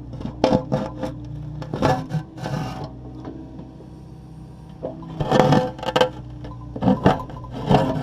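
Takeuchi TB260 excavator running steadily while its bucket knocks and scrapes against broken concrete, with repeated clunks and harsh scraping, heaviest in the second half.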